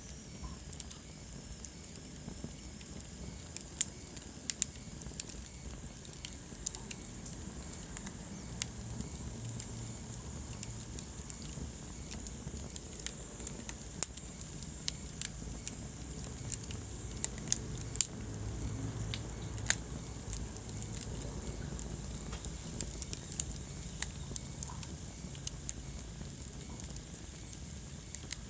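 Wood fire burning in a fireplace, crackling: sharp pops and snaps at irregular intervals over a low, steady rumble of the flames.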